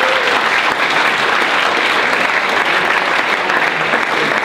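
Audience applause, a steady dense clapping welcoming the panelists.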